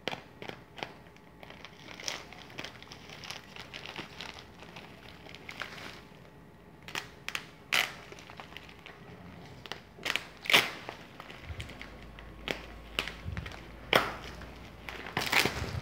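Plastic parcel wrapping, black plastic bag and clear plastic film, being pulled and torn open by hand: irregular crinkling and crackling with sharp louder rips, the loudest about ten seconds in and again near the end.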